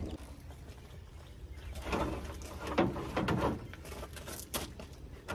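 A dove cooing a few times in the background, with a few light clicks over a low steady hum.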